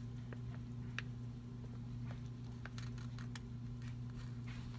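A steady low electrical hum of room tone, with a few faint scattered clicks and small taps.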